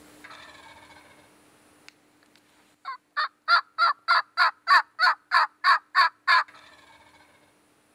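A run of about a dozen evenly spaced turkey yelps, roughly three a second, starting about three seconds in and loudest in the middle of the run. Fainter calling comes just before and after it.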